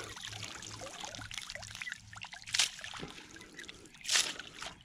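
Lake water trickling and dripping off a magnet-fishing magnet and the clump of wet weeds caught on it, with small ticks and two brief louder splashy bursts, about two and a half and four seconds in.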